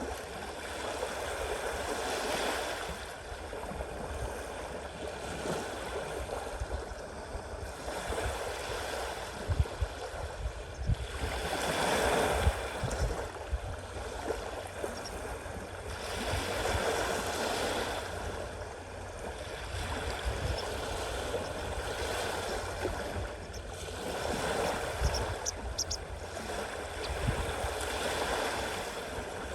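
Sea waves washing onto the shore, a steady rush that swells and fades every few seconds as each wave comes in.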